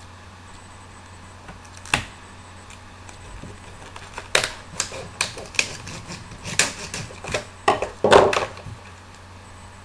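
Packaging being handled and pried open by hand: one sharp click about 2 s in, then a quick run of sharp clicks and crackles from about 4 s that ends with the loudest crackle near 8 s.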